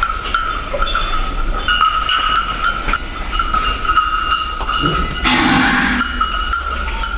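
Cattle shed sounds: clinking like cowbells over a steady high-pitched tone, with a short burst of rushing noise about five seconds in.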